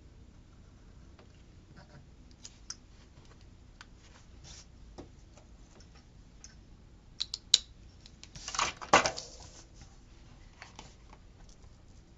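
Handling of paper sticker sheets: faint taps and small clicks, a few sharp clicks a little past halfway, then a short burst of paper rustling, the loudest sound, about a second long.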